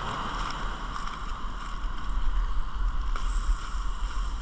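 Wind buffeting the microphone as a fluctuating low rumble over a steady hiss, with a few faint crinkles as an aluminium foil parcel is handled.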